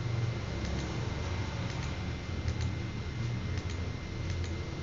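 Computer mouse clicking at irregular intervals, roughly once or twice a second, as nodes are placed one by one with a drawing tool. A steady low hum and a faint high whine run underneath.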